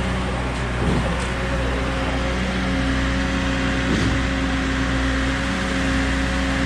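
Concrete pump truck running steadily with a steady hum, and a short knock about every three seconds as the pump strokes.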